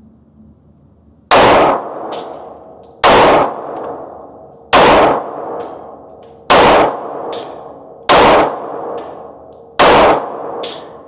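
Six handgun shots fired one at a time at a steady pace, about one every second and a half to two seconds, each with a decaying echo and a fainter short click shortly after.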